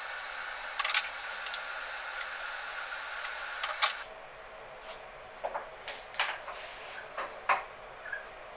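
A steady hiss that cuts off about four seconds in, with sharp clicks and light knocks of wood and tools being handled, most of them after the hiss stops.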